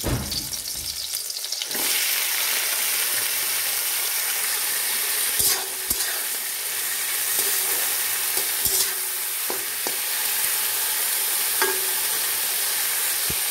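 Washed, still-wet potatoes, pointed gourd and green chillies hitting hot mustard oil in a metal wok: a loud sizzle bursts in about two seconds in and keeps going steadily, the water on the vegetables spitting in the oil. A spatula stirring against the wok clinks and scrapes now and then.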